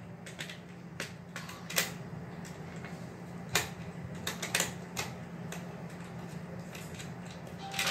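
Screwdriver tester working the screws out of a plastic modular switchboard plate: scattered small clicks and taps of metal on screw and plastic, a few seconds apart.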